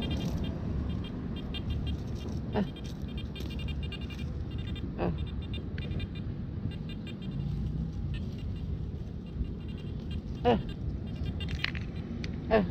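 A steady low rumble, with four short chirps that sweep quickly downward in pitch, the last two the loudest.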